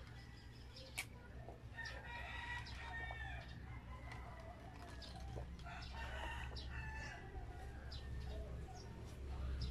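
Chickens clucking and a rooster crowing in the background, over a low steady hum, with a few short clicks.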